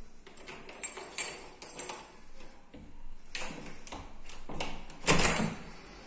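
Glazed balcony door being opened: a series of clicks and knocks from the door and its fittings, then a louder rumbling scrape about five seconds in as the panel moves.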